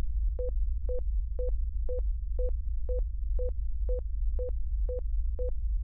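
Electronic sound design: a steady low drone with short, evenly spaced beeps at one pitch over it, about two a second.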